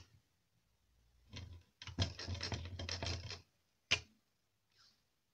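Circuit boards and small parts being handled on a wooden workbench: a sharp click, then about a second and a half of rapid rattling and scraping, and another sharp click near the end.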